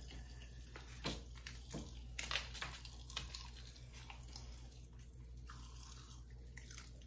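Sour Pop Rocks popping candy crackling in closed mouths: faint, irregular little pops and clicks, with some crunching of the candy.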